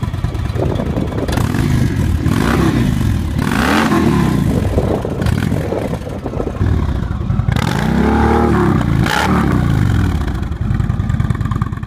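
Indian V-twin motorcycles riding past one after another, each engine note rising and then falling in pitch as it goes by. The loudest passes come about eight to nine seconds in.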